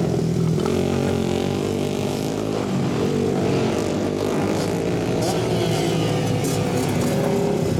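Several dirt-track racing motorcycles running through a corner one after another, their engines overlapping, the pitch dropping and climbing again as each rider comes off and back on the throttle.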